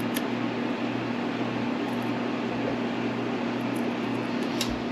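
Steady low electrical hum with a constant room noise, and a few faint light clicks near the end.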